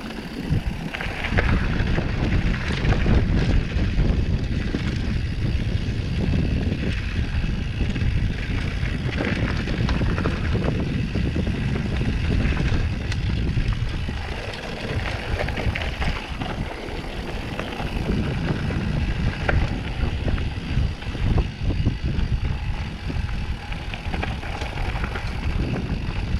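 Mountain bike rolling fast down a dirt trail: steady wind rumble on the microphone over tyre noise and the rattle of the bike.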